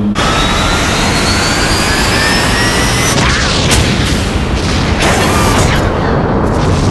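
Animated missile launch sound effect: a loud, steady rocket-engine roar with a whine rising in pitch over the first three seconds, and a few sharp cracks around the middle.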